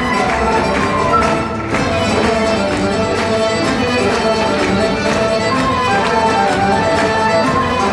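Serbian folk dance music played loud and without a break: melody instruments over a steady beat.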